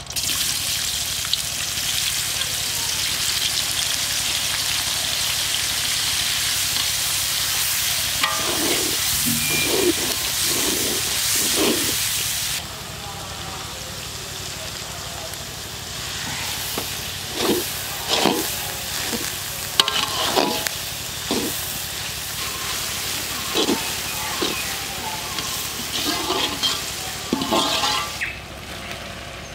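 Sliced onions hitting hot oil in a large iron kadai, setting off a loud sizzle that starts suddenly and drops lower about a third of the way through. Over the frying in the later part come many short scrapes and knocks of a metal spatula against the pan as the vegetables are stir-fried.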